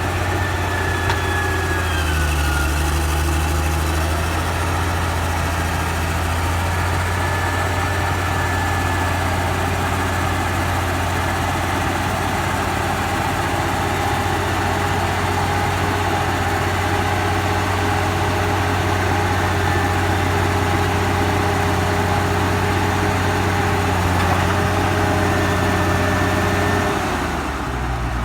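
Nissan RE10 V10 diesel engine of a loaded logging lorry running steadily with a deep, even hum. Its note changes pitch and briefly drops in level near the end.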